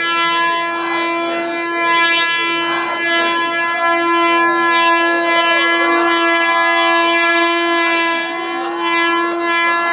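Handheld canned air horn sounding one long unbroken blast, a steady loud tone held without a pause, with voices shouting faintly beneath it.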